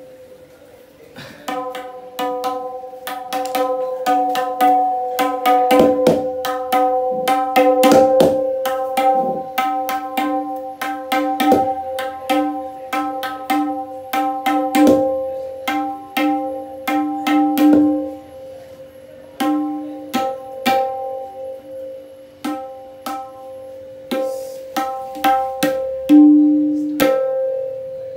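Dayan (right-hand tabla drum) struck over and over, each stroke ringing at the same clear pitch. The strokes come in a quick run for most of the time, then sparser and more separate near the end.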